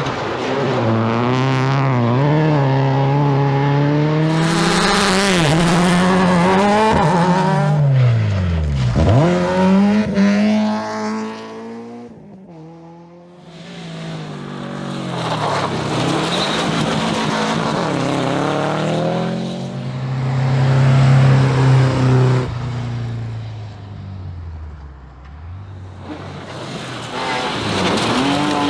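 Rally cars at full speed, engines revving hard and changing pitch through gear changes, with one sweeping close past about nine seconds in, its engine note dropping sharply as it goes by, and another building up again after a brief lull.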